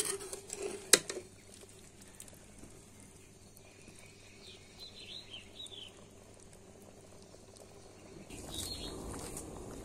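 A steel spatula scrapes and clinks against a metal kadhai of curry, with one sharp clink about a second in. Faint bird chirps follow in the middle, and a soft hiss swells near the end.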